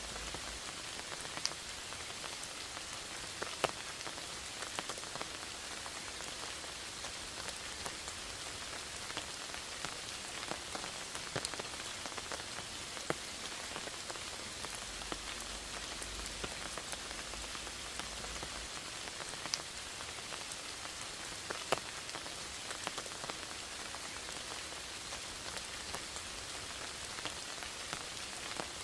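Steady rain falling: an even, high hiss with a scattered few louder single drops ticking close by.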